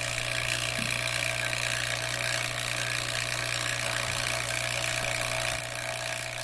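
Refrigeration vacuum pump running steadily while evacuating the repaired system: a constant low hum with a higher whine over a hiss.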